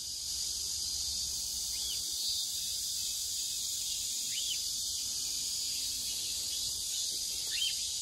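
Steady, high-pitched drone of a summer insect chorus, with a few short, faint bird chirps over it.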